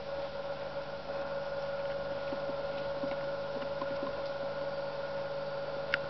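A pet rat's breathing heard as faint irregular ticks and clicks over a steady hum, with one sharper click near the end. The clicking is the strange breathing noise of a respiratory illness that the vet cannot yet name, under antibiotic treatment.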